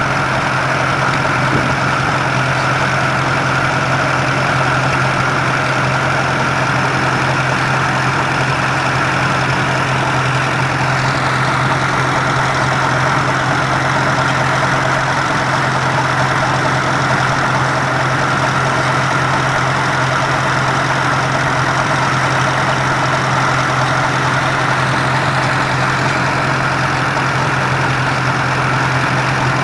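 Antique tractor engine idling steadily.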